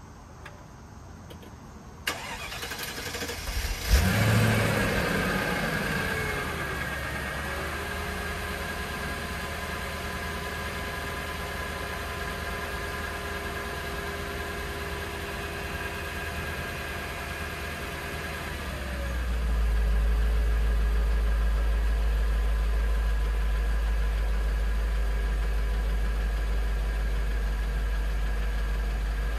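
Mercedes G500 V8 cold start. About two seconds in the starter cranks for roughly two seconds, the engine catches with a loud flare, then its revs settle down over a few seconds into a steady fast idle. Some sixteen seconds after it catches, the idle turns deeper and louder.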